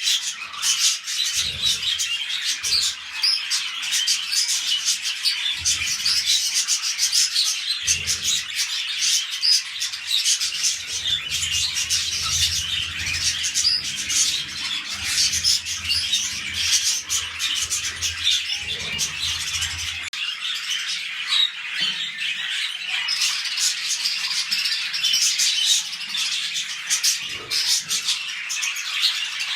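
Budgerigars chattering and warbling nonstop: a dense stream of quick, high chirps and squawks.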